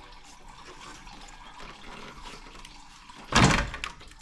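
Pink engine coolant pouring steadily out of a C5 Corvette's disconnected radiator hose as the radiator drains, with one louder burst a little over three seconds in.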